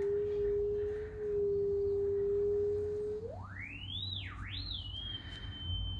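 A single pure tone from a powered speaker fed by a DIY DSP lock-in amplifier (synchronous demodulator), whose input wire lies on the grass. It holds steady at a low pitch for about three seconds, then glides sharply up, dips briefly and rises again, and settles into a steady high whistle.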